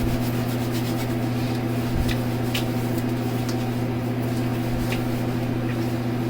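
Steady low mechanical hum, as of a fan or air-conditioning unit running, with a few faint light clicks.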